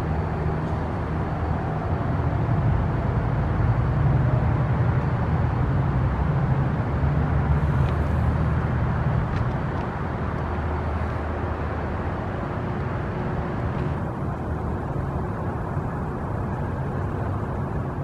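City traffic, with a heavy vehicle's engine rumbling low and steady. It swells a few seconds in and eases off after about ten seconds.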